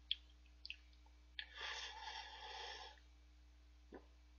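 Slurping udon noodles from a bowl held to the mouth: one slurp lasting about a second and a half, with a few light clicks just before it.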